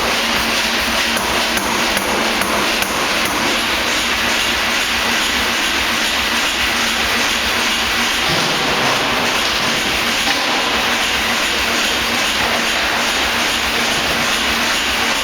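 Pneumatic forging hammer working, its ram striking in a fast, even run of heavy blows.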